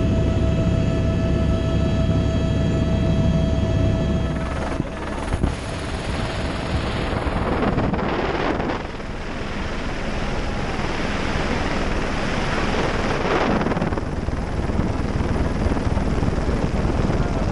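Helicopter engine and rotor heard from inside the cabin: a steady whine with several held tones over a low rumble. About four and a half seconds in, the tones drop away and a loud, even rush of wind and rotor noise takes over, as heard from the open doorway.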